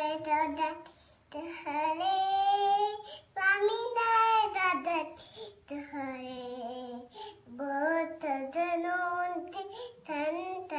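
A small girl singing a Hindi aarti, a Hindu devotional hymn, alone with no instruments, in short phrases of held, wavering notes broken by brief pauses for breath.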